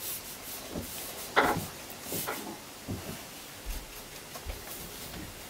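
Faint handling sounds of a small paintbrush stroking acrylic paint onto canvas and dabbing in a plastic palette tray, with a brief louder knock or rustle about a second and a half in.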